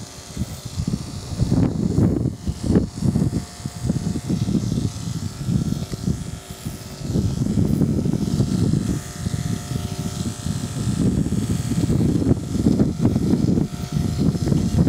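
Andis two-speed electric dog clipper with a 3 3/4 FC blade buzzing as it trims the dog's chin and neck fur, under a loud, uneven low rumbling.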